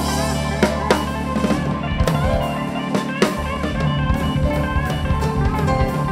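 Band music with a drum kit and guitar keeping a steady beat.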